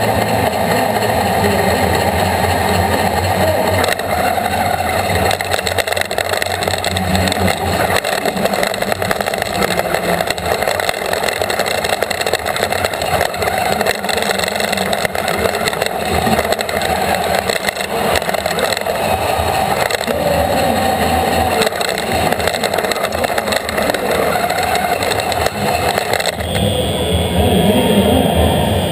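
Steady, loud mechanical noise of a FIRST Robotics Competition robot's motors and mechanism, picked up by a camera bolted to the robot's frame. About 26 seconds in, the noise changes and a higher steady tone comes in.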